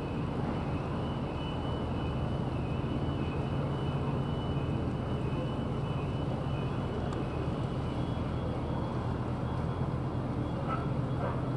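Car ferry MV St Clare's engines running with a steady low drone as the ship passes, over a constant wash of noise.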